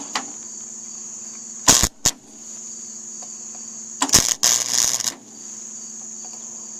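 Welding arc crackling as a thick steel exhaust pipe joint is tack-welded: a short strike a little under two seconds in, then a crackling burn of about a second just after four seconds, over a steady high-pitched background drone.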